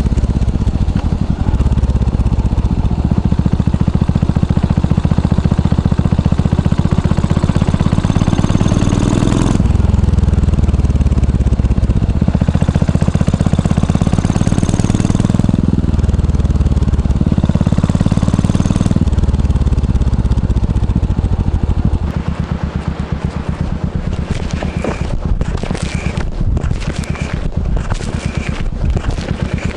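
Yamaha SR400's air-cooled single-cylinder four-stroke engine running, its exhaust note changing in pitch and loudness every few seconds. About two-thirds of the way through it becomes quieter and rougher, with irregular crackling noise over it.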